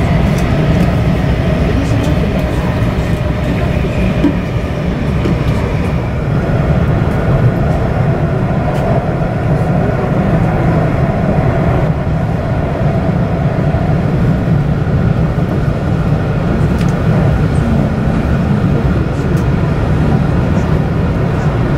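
Joetsu Shinkansen bullet train heard from inside the passenger cabin while running on the line: a steady rumble of the running train with a faint steady whine over it.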